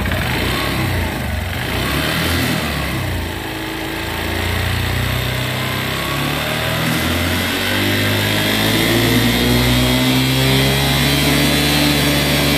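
Honda commuter motorcycle's air-cooled single-cylinder engine running steadily at idle. It is being run to show the abnormal engine noise that the owner reports since a cylinder-head job.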